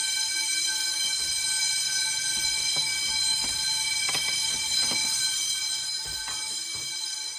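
Fire alarm bells ringing continuously, a steady multi-tone ring, getting fainter near the end. A few short knocks sound in the middle.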